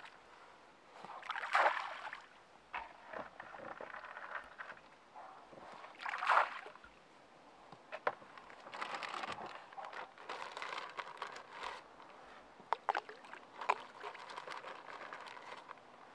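Handling noises on a small boat: a plastic scoop working through wet particle bait in a plastic bucket, with water sloshing, in short irregular bursts and a few sharp knocks.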